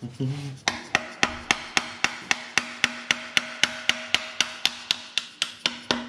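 Plastic-faced mallet tapping the crankshaft timing-belt sprocket onto the nose of a Subaru EJ25 boxer engine's crankshaft: about twenty quick, even taps, some four a second, each leaving a short metallic ring. The sprocket is being seated over a Woodruff key shortened by about a millimetre to fit the crank's too-shallow keyway.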